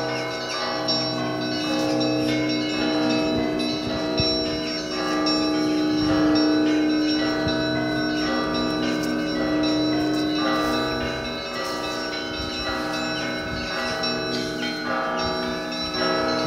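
Bells of a Russian Orthodox monastery belfry ringing together: many bells of different pitches struck in a dense, overlapping peal, with one lower bell struck in a quick steady rhythm under them.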